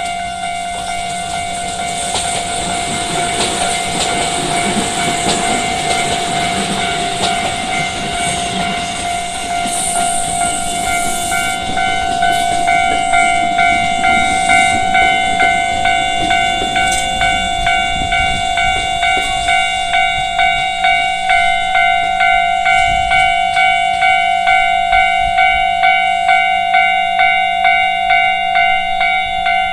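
Japanese level-crossing warning bell ringing in a steady repeating beat. Through the first half a train runs past on the rails with a rumble and wheel clatter, and there is a short high hiss about ten seconds in.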